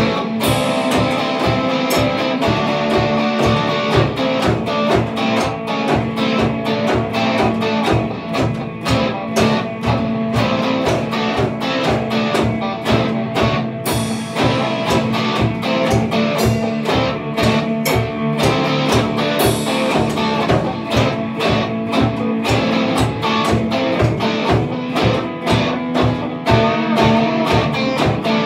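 Instrumental rock played live by two electric guitars and a drum kit, the drums keeping a steady driving beat under the chugging guitars.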